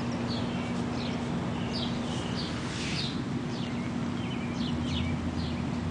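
Small birds chirping, with short high chirps repeating every second or so, over a steady low hum.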